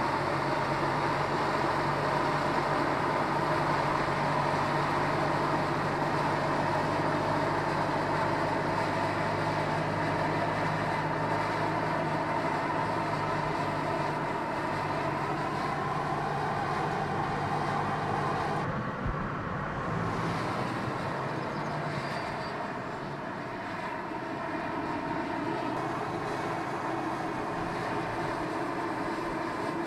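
Volkswagen Scirocco R's turbocharged four-cylinder engine running steadily while driving. The sound shifts abruptly about two-thirds of the way in.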